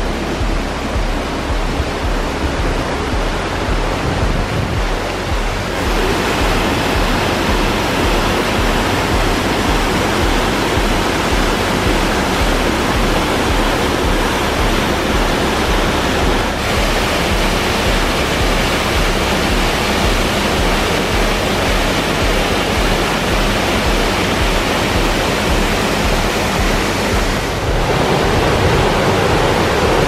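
Rushing water of a waterfall in heavy flow, a steady dense rush of falling and splashing water whose tone shifts abruptly a few times.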